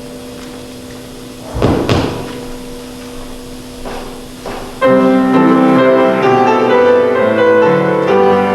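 A loud thump about two seconds in and two softer knocks, then piano music starts abruptly about five seconds in, with full chords: the closing postlude after the dismissal.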